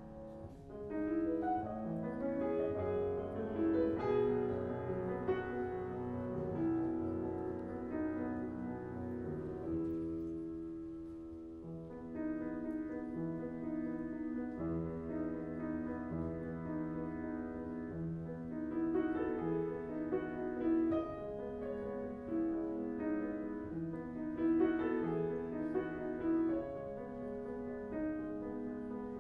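Solo upright piano playing a melody over sustained chords. About ten seconds in, a held chord fades softer before the playing picks up again.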